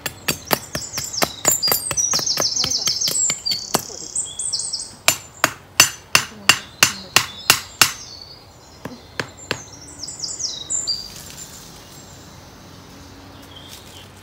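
A large chopping knife knocking a wooden stake into the ground: repeated sharp knocks about three a second, hardest from about five to eight seconds in, then a few scattered blows before they stop. A bird chirps quick high calls over the early blows and again near the end of the knocking.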